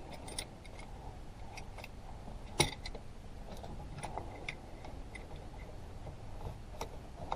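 Small metal clicks and taps of a C-clamp being set against a rear brake caliper to push the piston back in, with one sharper knock about two and a half seconds in.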